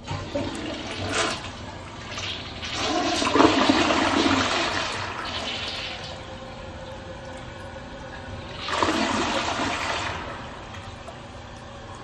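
CLINS toilet flushing: water rushes into the bowl and drains, loudest a few seconds in, then eases off, with a second loud surge of rushing water about nine seconds in.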